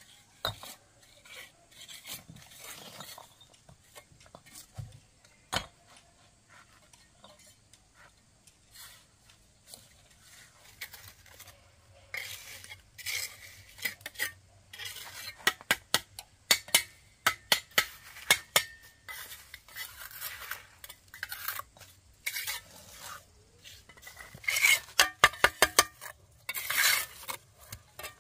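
Bricklaying: a steel trowel scraping and spreading wet mortar and tapping hollow clay bricks into place, with clinks of bricks being handled. The clicks and scrapes come thicker from about halfway through, with a quick run of sharp taps near the end.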